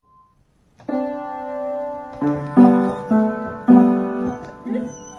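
Electronic keyboard pawed by a dog: after a second of near silence, a held cluster of notes sounds, then about six struck clusters of clashing notes, each ringing briefly.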